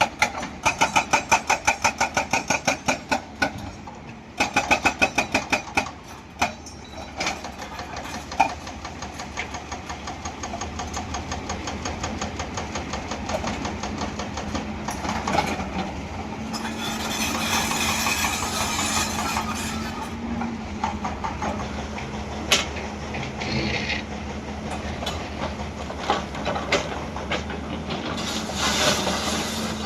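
Hydraulic breaker hammer on a Hyundai excavator pounding rock in rapid, even blows for a few seconds, then a second short burst. After that the diesel engine runs steadily, with occasional knocks and two stretches of louder hiss-like revving as the machine works.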